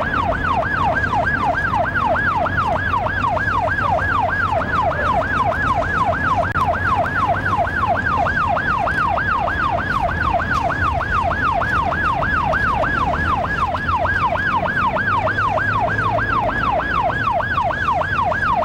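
Police car siren in fast yelp mode, rising and falling about three times a second, heard from inside the pursuing patrol car over its engine and road noise.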